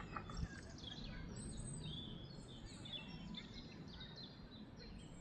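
Faint birdsong: several birds chirping with many short, high notes throughout, over a low background hiss.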